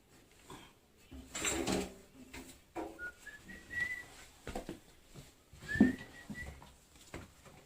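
Knocks and clatter of handling parts, with two short, high whistle-like notes that rise and then hold.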